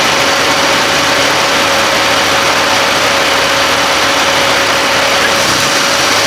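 Turbocharged Jeep TJ 4.0 inline-six idling steadily, with a misfire on cylinder four.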